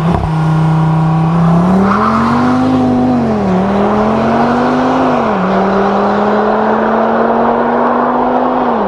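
Audi RS3's turbocharged 2.5-litre five-cylinder engine accelerating hard as the car drives away, its pitch climbing and then dropping at two upshifts, about three and a half and five and a half seconds in, before holding steady.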